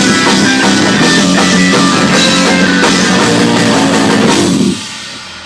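Loud rock music with electric guitar and a drum kit, which cuts off about three-quarters of the way through, leaving a fading ring.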